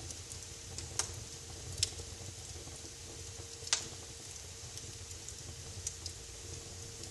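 Wood fire crackling in a fireplace: a soft steady hiss with scattered sharp pops, the loudest about one second, two seconds and nearly four seconds in.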